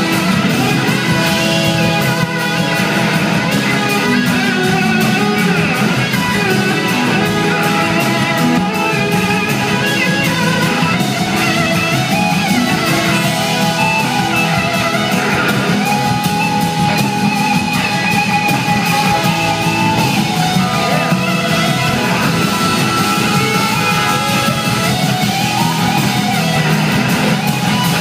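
A live blues-rock band playing loud, led by an electric slide guitar solo of long held notes that glide between pitches, over bass and drums.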